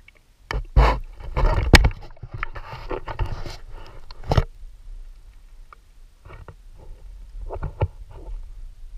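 Water sloshing and splashing around an action camera held at the sea surface, with irregular knocks and bumps from handling on the housing. The splashing is loudest in the first two seconds, then thins to scattered knocks.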